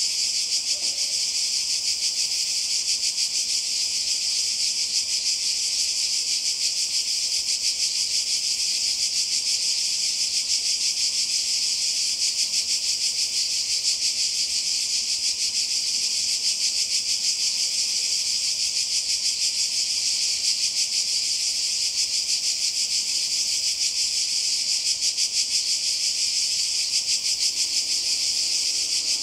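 Chorus of cicadas singing: a steady, high-pitched, rapidly pulsing buzz with no break.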